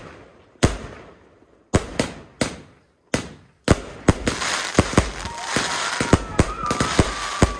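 Fireworks going off: a few single sharp bangs with echoing, fading tails in the first half, then from about halfway a dense barrage of bangs and crackling with a long whistle over it.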